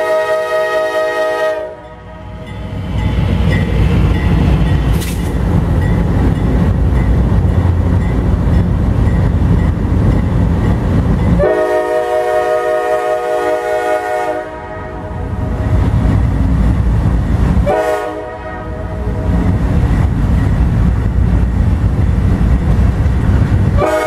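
Diesel freight locomotive's multi-chime air horn blowing for a grade crossing: a blast cut off just under two seconds in, another of about three seconds near the middle, and a long one from about eighteen seconds on. Between the blasts the locomotives' diesel engines rumble past.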